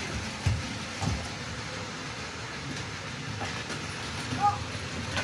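Battery-powered Plarail toy bullet train running steadily along its plastic track, with two soft knocks about half a second and a second in.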